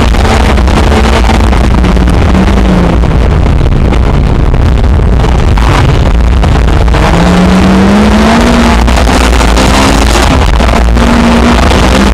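Lexus IS200 rally car engine heard loud from inside the cabin at speed, its revs climbing and dropping through gear changes, with sharp knocks and rattles over a steady rush of road noise.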